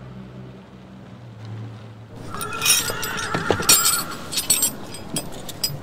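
Vintage car's engine fading as it drives away, then a metal chain and padlock clinking and rattling in quick, sharp clinks, with a wavering high-pitched squeal for a second or two at the start of the clinking.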